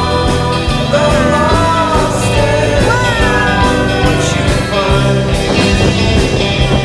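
Background music: a song with a sung melody over steady bass notes.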